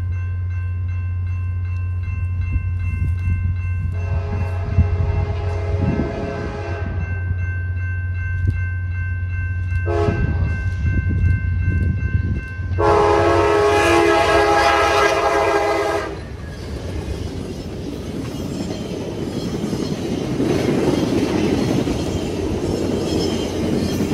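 VIA Rail P42DC locomotive's air horn sounding three blasts as the passenger train approaches; the last is the longest and loudest. Then comes the rumble and rattle of the locomotive and coaches passing on the tracks, over a steady low hum.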